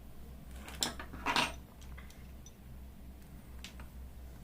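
Small hard plastic and metal phone parts and tools being handled on a repair bench: a click and then a short scrape about a second in, with a few faint ticks, over a low steady hum.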